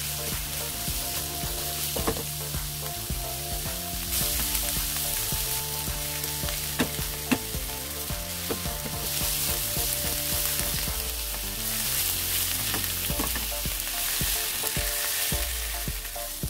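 Torn cabbage sizzling in hot oil in a nonstick wok as it is stir-fried with a silicone spatula. The frying hiss is steady, swelling louder in the middle, with a few light clicks of the spatula against the pan.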